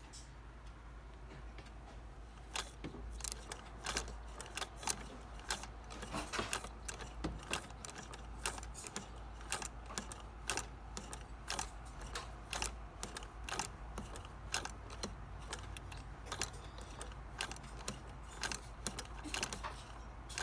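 Irregular metallic clicking and clinking from an antique Singer 99 sewing machine's parts being worked by hand, starting a couple of seconds in. The clicks come several a second but not in an even stitching rhythm.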